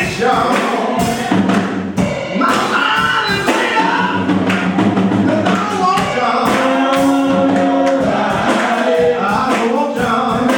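Gospel choir singing with live instrumental accompaniment and a steady percussive beat.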